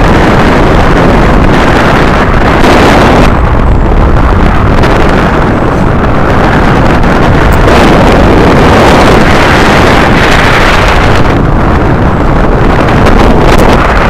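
Airflow buffeting the microphone of a camera mounted on a hang glider's control-frame upright in flight: loud, steady wind rush that swells and eases every second or two.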